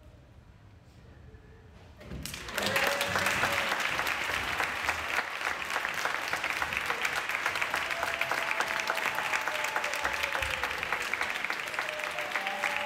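Audience applause: after a hushed pause of about two seconds, many people start clapping at once and keep up a steady, dense clapping.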